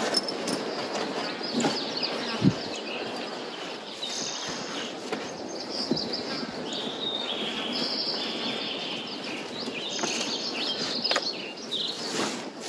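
Outdoor background noise with a run of short, high-pitched chirping calls through the middle, and a single sharp knock about two and a half seconds in.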